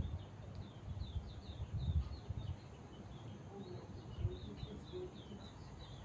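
A small bird singing a fast run of short, high, downslurred chirps, with irregular low rumbling on the microphone.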